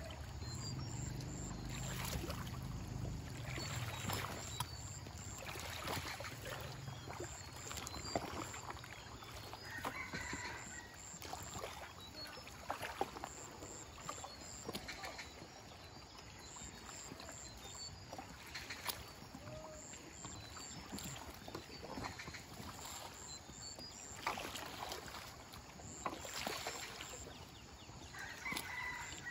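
A small raft being poled along a fast river: a long pole dipped and pushed into the water, with splashes about every two seconds over steady water lapping and rushing.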